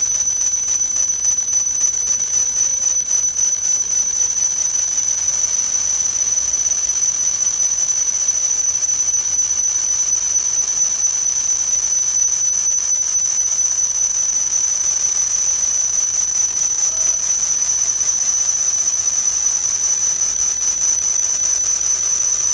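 Galvo laser marking machine at work engraving wood: a steady high-pitched whine over a faint hiss.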